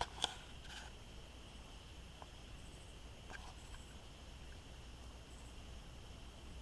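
Faint, steady chirring of night insects, with two small sharp clicks right at the start.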